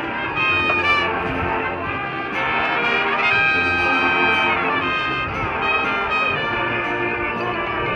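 High school marching band playing, its brass holding long chords that swell louder about two and a half seconds in.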